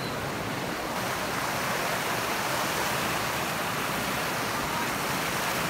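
Steady rush of running water, an even hiss that keeps on without a break.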